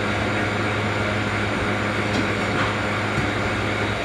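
Manitowoc ice machine running: a steady hum from its compressor under the even whoosh of its condenser fan.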